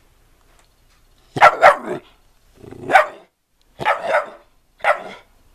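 Dog barking: six short barks, a quick pair, then single barks and another pair, spaced about a second apart.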